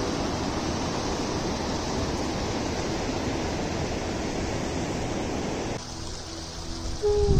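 A river rushing steadily, cutting off abruptly about six seconds in. A low held tone begins just before the end.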